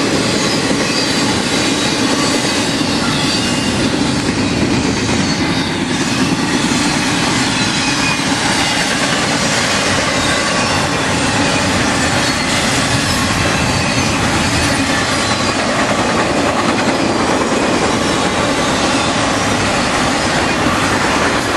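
Cars of a CSX intermodal freight train rolling past at speed: a loud, steady rush and rumble of steel wheels on rail, with faint high wheel squeal running through it.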